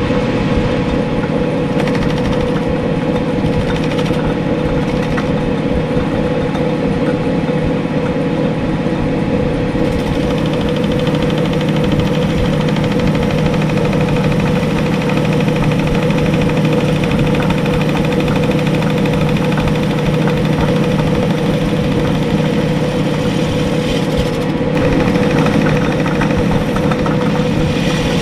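Small metal lathe running steadily under power with a constant hum, turning a fork bushing down in width.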